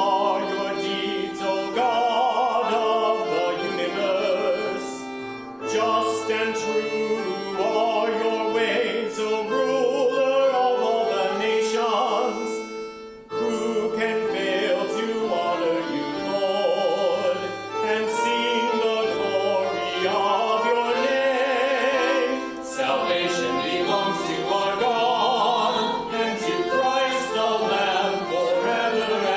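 Sung liturgical canticle: voices singing with vibrato over instrumental accompaniment, with a brief break between phrases about twelve seconds in.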